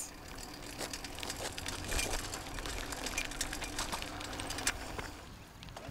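Outdoor movement noise: a low rumble of wind on the microphone with scattered gritty crunches and clicks over asphalt as a child's small bicycle rides along.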